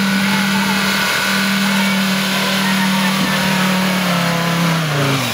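Off-road buggy's engine held at high, steady revs under heavy load while it climbs a sand bank. The revs sag a little near the end.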